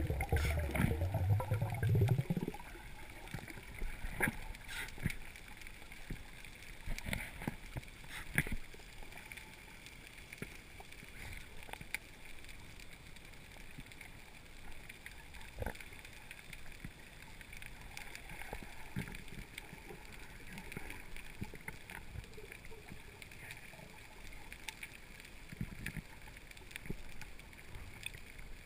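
Underwater sound picked up through a camera housing on a reef dive: a low gurgle of water rushing past for the first couple of seconds, then a faint steady hiss with scattered sharp clicks and crackles.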